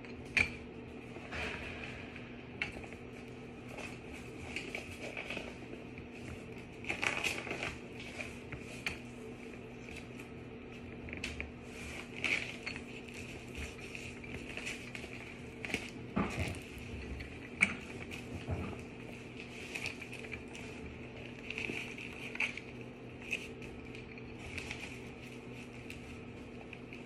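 Canvas liner of a wheeled laundry hamper rustling and its metal frame clinking as the fabric is tugged down over the top rim and snapped into place, with scattered sharp clicks and knocks.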